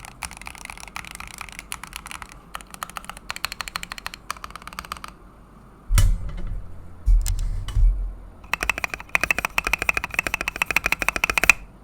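Keychron V1 mechanical keyboard with Akko Crystal switches and a four-layer tape mod, typed on quickly in several bursts of clicky key presses. Around the middle, where typing pauses, a few loud deep thumps.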